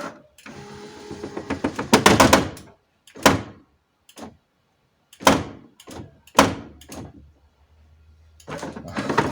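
Metal rattling and clunking from an Alfa Romeo 166's scissor-type front window regulator being worked by hand: its linkage has a lot of play and knocks as it moves. A couple of seconds of dense rattling are followed by four separate knocks.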